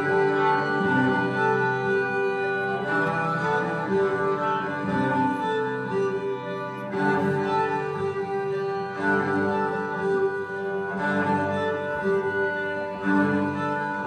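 Instrumental music carried by string instruments in long held notes, with a new phrase entering every couple of seconds.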